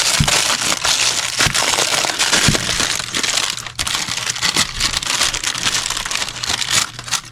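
Packaging of a new piston kit crinkling and rustling continuously as it is unwrapped by hand, with a few light knocks.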